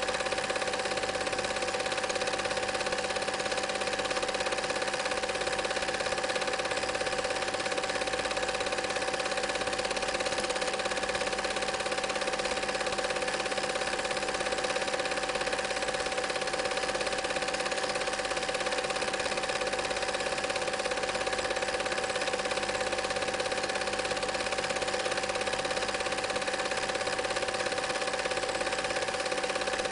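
Home-movie film projector running: a steady mechanical whir with a constant hum, unchanging in level.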